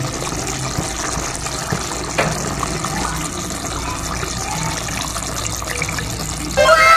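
Coconut-cream stew bubbling in a pot on a gas stove: a steady bubbling hiss. Near the end, a falling chime-like sound effect comes in over it.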